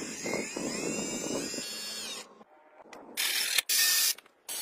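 A small electric motor and gearbox running for about two seconds, a rattle of gears under a high whine that shifts slightly in pitch, then stopping. From about three seconds in, short loud bursts of a power drill's sanding drum grinding wood.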